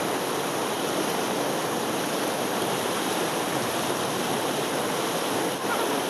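Whitewater rapids rushing steadily over rocks.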